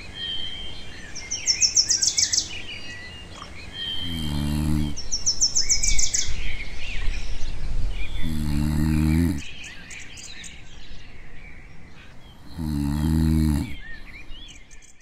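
Birds chirping and trilling, with a person snoring three times, each snore about a second long and about four seconds apart.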